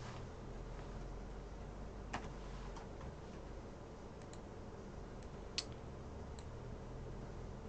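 A few scattered, sharp clicks of a computer keyboard and mouse, about five in all, the loudest a little over two-thirds of the way through, over a steady low hum.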